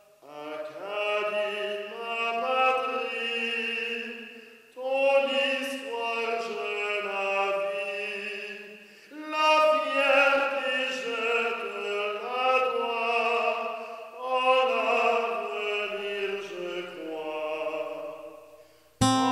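A man singing solo and unaccompanied, in a classical operatic style: four long phrases of held notes with short breaths between them. Just before the end it cuts suddenly to louder guitar music.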